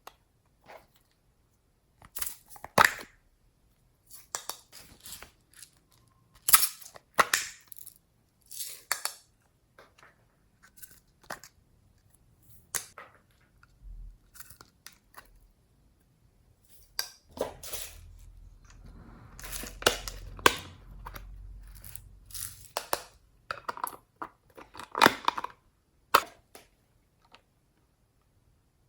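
Slime being squeezed and kneaded by hand, giving irregular sticky crackles and pops, with a longer run of continuous crackling a little past halfway.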